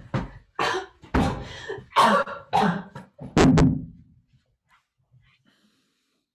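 A man coughing hard, about eight coughs in quick succession over some four seconds.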